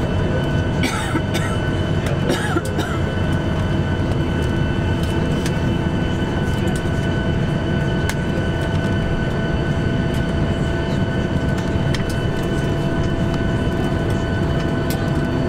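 Steady cabin noise of a Boeing 737-800 taxiing: its CFM56 engines at idle give a low rumble under several constant whine tones.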